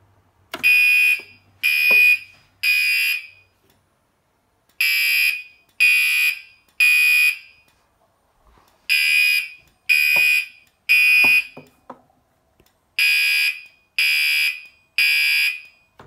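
Gentex Commander 3 fire alarm horn-strobe sounding the temporal-three evacuation pattern: three loud blasts about a second apart, then a pause, repeated four times. The panel's drill switch has set it off, and the horn is on its low volume setting.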